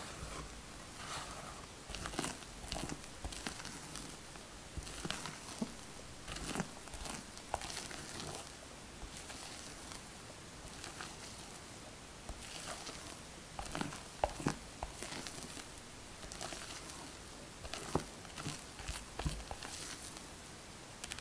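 Silicone spatula folding thick, airy egg-and-flour sponge batter in a glass bowl: irregular wet scraping and squishing strokes, with a few sharper clicks near the middle and toward the end.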